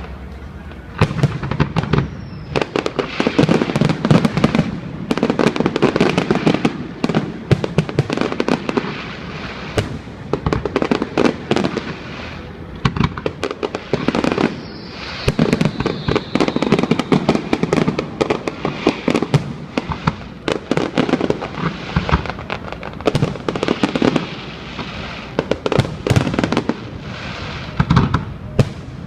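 Aerial fireworks going off in rapid, overlapping volleys: many sharp bangs and crackles, coming in thick clusters with a few short lulls.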